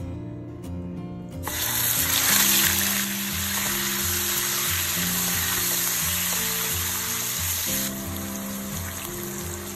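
Turmeric-marinated beef slices sizzling loudly as they hit hot oil in a wok, starting suddenly about a second and a half in and going on while they are stirred. Near the end water is poured into the pan and the sizzle eases a little.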